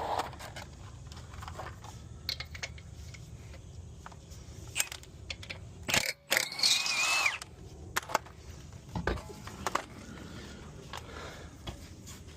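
Tools and metal parts being handled during a car tire change: scattered clinks, knocks and scrapes, with one loud noisy burst lasting about a second and a half around the middle.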